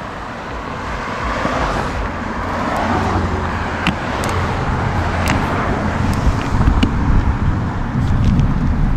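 Wind and road noise while riding a bicycle in traffic: a steady rushing with a low rumble that slowly grows louder. A few sharp ticks come through about four and five seconds in.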